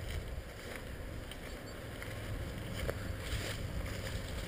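Wind rumbling steadily on the microphone, with a few faint ticks and rustles.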